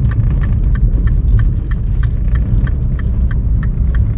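Car interior road and engine rumble with a turn-signal indicator ticking steadily, about five clicks a second, while the car turns.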